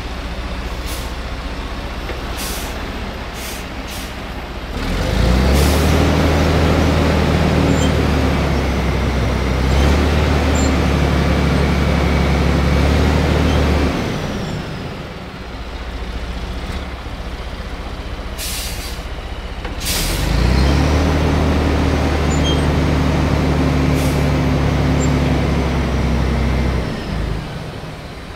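Diesel engines of a Fendt tractor packing a silage pile and a forage truck unloading onto it. One engine swells to a loud, steady laboring note twice, each time for about nine seconds, over a lower engine running steadily, with a few short sharp bursts in between.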